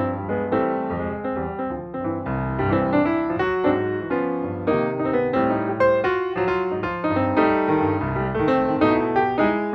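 Background piano music, a steady stream of quick notes over sustained bass chords.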